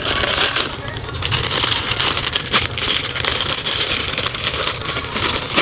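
Crackling, crinkling handling noise with scattered sharp clicks, from squishy toys and their plastic packaging being handled.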